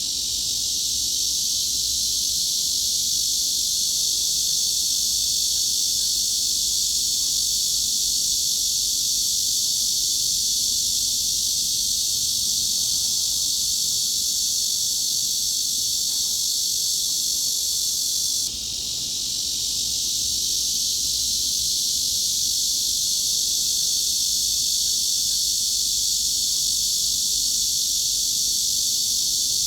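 Cicada buzz: a steady, unbroken, high-pitched drone. About two-thirds of the way through it dips briefly and swells back up, where the looped recording restarts.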